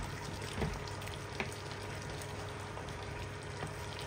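Potato porridge in tomato sauce simmering in a pot with a steady sizzling crackle, a wooden spoon knocking against the pot about half a second and a second and a half in.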